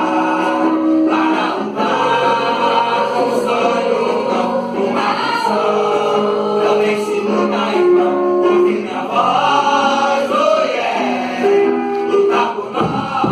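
A choir singing a song over musical backing, with held sung notes. Near the end, a steady beat with low drum hits comes in.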